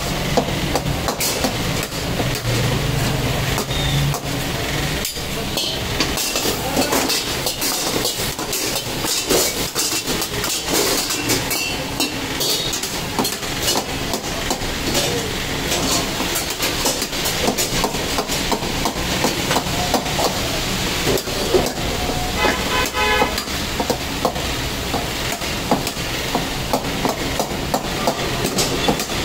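Metal ladle scraping and clanking against a steel karahi wok as mutton in gravy is stirred over a gas flame, with a steady sizzle. A vehicle horn sounds briefly about two thirds of the way through.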